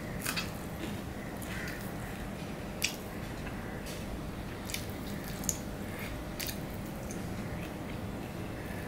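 Close-miked eating sounds of a man eating rice and curry by hand: wet chewing and squishing, with a few sharp clicks, the loudest about three seconds in and again about five and a half seconds in.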